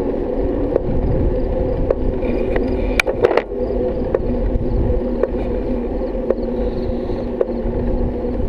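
Bicycle rolling on asphalt, its tyres and drivetrain making a steady whir, with a light click about once a second and a short rattle of clicks about three seconds in.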